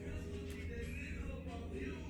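A radio playing music, with a strong steady bass and a voice singing or talking over it, heard from a neighbouring hotel room.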